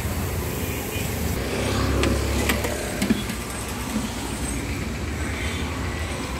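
Road traffic rumbling steadily, swelling as a vehicle passes about two seconds in, with two sharp clicks shortly after.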